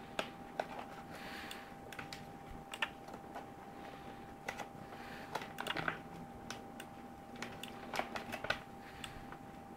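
Irregular clicking of computer controls being worked, single clicks and quick clusters of several, over a faint steady electronic hum.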